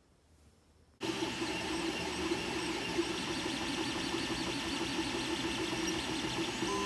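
3D printer running while printing: a steady mechanical whir with an even hum, starting about a second in.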